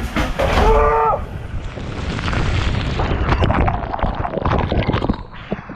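Water rushing and splashing over a camera riding down a water slide, with a deep rumble of water buffeting the microphone and a brief shout about a second in. Near the end the rushing gives way to quieter crackling and dripping water.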